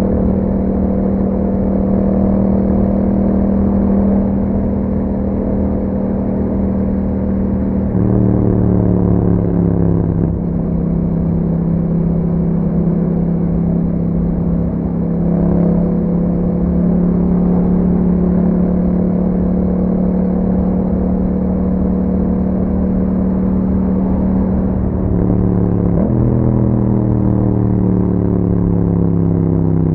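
Yamaha MT-07's 689 cc parallel-twin engine running through an Akrapovic exhaust, riding at a mostly steady cruise. About eight seconds in, and again near the end, the revs jump and then fall away as the bike slows.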